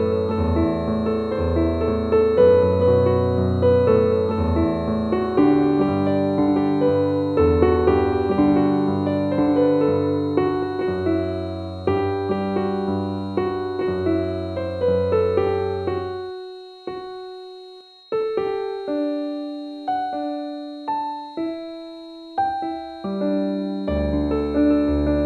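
Piano music: chords over a low bass line, thinning to sparse single notes about two-thirds of the way in, with the fuller playing returning near the end. A steady high tone runs underneath throughout.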